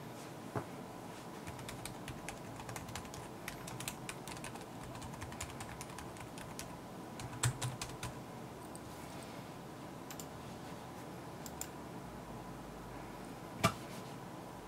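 Typing on an iNote Fusion FNC scissor-switch (pantograph) wireless keyboard: a quick run of light key clicks that thins out after about eight seconds to a few scattered keystrokes, with one louder click near the end.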